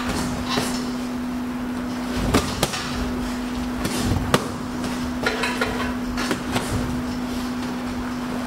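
Boxing gloves landing punches in close sparring: irregular thuds and slaps of glove on glove, headgear and body, the sharpest hit about four seconds in. A steady low hum runs underneath.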